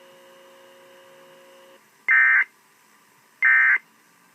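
NOAA Weather Radio SAME digital end-of-message code: two short, loud, buzzy data bursts about a second and a half apart, marking the end of the weekly test broadcast. Before them a faint steady tone cuts off about halfway through.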